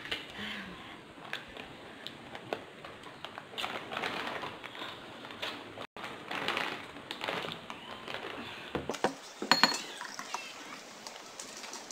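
Eating and drinking noises: snack chips crunched and their plastic bag crinkled, with glasses and a plastic soda bottle knocking and clicking. The sharpest cluster of clicks comes near the end as the bottle is handled.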